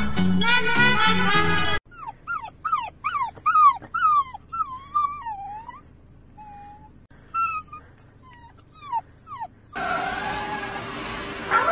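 Upbeat music cuts off about two seconds in. Then a puppy whines and whimpers in a run of short, high cries that fall in pitch, with one longer wavering cry in the middle and sparser cries after. Near the end a husky puppy starts howling.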